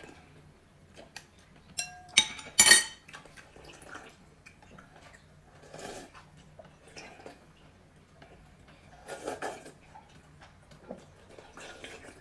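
Tableware clinking: chopsticks and spoons knocking against glass and metal bowls, with a few sharp, ringing clinks about two seconds in that are the loudest sounds. Softer noisy bursts follow as broth is slurped from the bowls.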